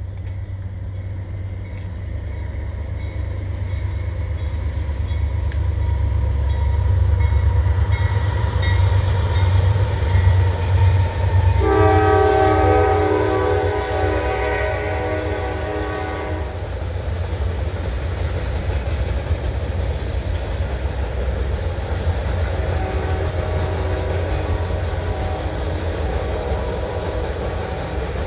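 Two GE C44-9W diesel locomotives rumble past at the head of a heavy freight train, their low engine drone building over the first several seconds. About twelve seconds in, the locomotive horn sounds a chord of several notes for about five seconds. Then loaded flatcars roll by with a steady rumble of wheels on rail.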